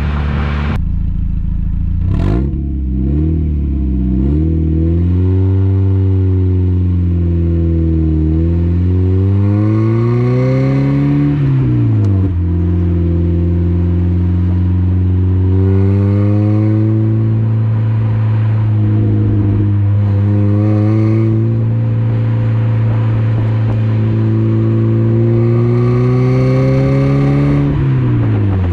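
Car Make Corn's V-III dual-tip exhaust on a 1990 Mazda Miata's 1.6 L four-cylinder, heard at the tailpipes while driving. The engine note rises as the car accelerates, drops at a gear change about halfway through, holds at a steady cruise, then climbs again and falls at another shift near the end.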